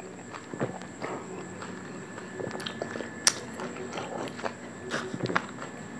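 Close-miked chewing of raw leaves and sipping of water from a plastic cup: scattered small mouth and cup clicks, with one sharp click about three seconds in.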